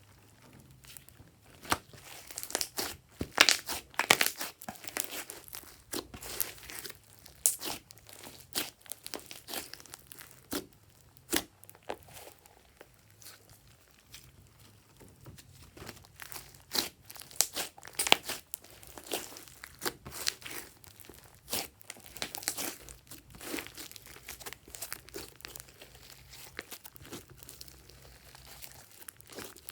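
Glossy slime being squished and stretched by hand, giving irregular clusters of sharp crackling pops and clicks.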